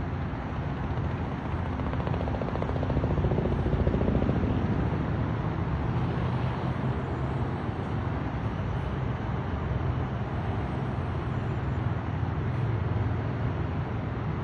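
Light helicopter flying past, its rotor beating fast over a steady low hum, loudest about three to four seconds in.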